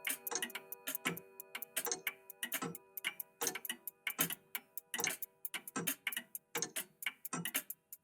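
Several old mechanical clocks ticking at once, out of step with one another, several ticks a second. A lingering ringing tone, like a chime, dies away over the first few seconds.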